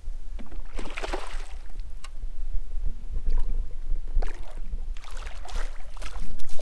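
Hooked smallmouth bass thrashing at the surface beside a kayak: several short splashes, the loudest near the end, over a steady low rumble.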